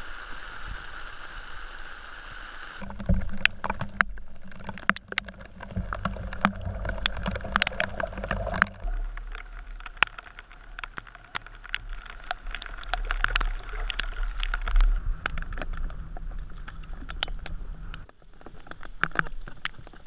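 Steady rain, with many sharp taps of raindrops striking the camera and a low rumble on the microphone, over the water sounds of canoes being paddled. The sound changes abruptly three times between clips.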